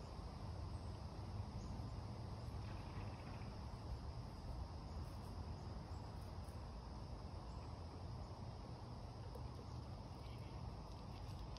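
Quiet outdoor ambience: a steady chorus of insects, crickets by their sound, high above a low steady rumble. A few faint light clicks come near the end.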